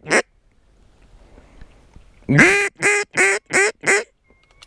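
A duck call blown in a hen mallard's quacking series. The last quack of one run comes right at the start, then about halfway through comes a loud run of five quacks, the first long and rising, the next four shorter and evenly spaced.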